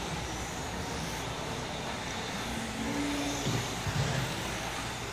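1/12-scale electric RC pan cars racing on an indoor track: a steady high whir of motors and tyres as the cars pass.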